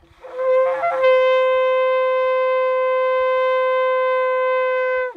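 A long twisted shofar blown in one long blast: a rough, wavering start that settles about a second in onto a steady, clear note, held for about four seconds and then cut off sharply.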